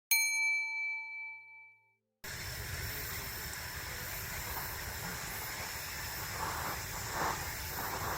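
A single bell-like chime struck once, ringing with several overtones and fading out over about two seconds. After a brief silence, a steady hiss of outdoor ambient noise with a low rumble comes in and runs on.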